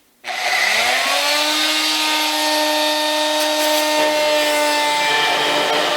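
Oscillating multi-tool switching on: a whine that rises in pitch over about the first second, then runs steadily as its blade cuts into the steel lock pillars of a tool cart.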